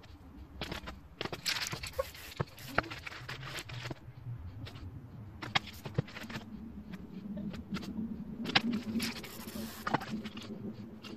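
Hands handling paper and stencil pieces on a spray-paint artwork: rustling with scattered sharp clicks and taps.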